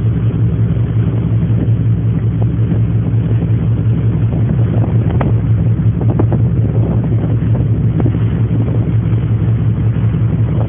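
Car ferry's engines running with a steady low drone, with a few faint knocks over it.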